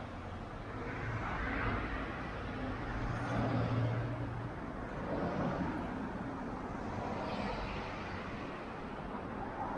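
Road traffic: cars passing one after another in swells of tyre and engine noise, with a low engine hum from a heavier vehicle a few seconds in.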